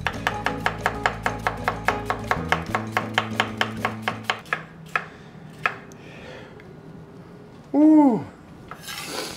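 Knife slicing an onion on a wooden cutting board into julienne strips: quick, even cuts about seven a second for roughly four seconds, then a few slower cuts. About eight seconds in, a short falling vocal exclamation from the cook.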